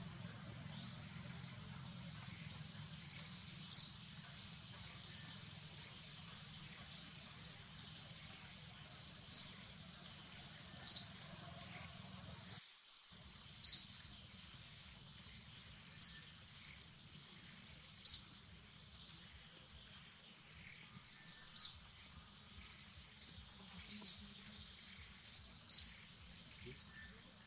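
A bird's short, high call repeated over and over at uneven intervals, roughly every two seconds, over a faint steady high-pitched drone of forest background.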